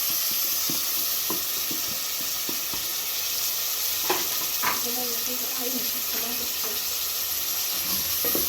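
Beef cubes and potatoes sizzling in plenty of hot oil in a cooking pot, with tomato paste being stirred in: a steady frying hiss with the spoon knocking and scraping against the pot now and then, two sharper knocks about four seconds in.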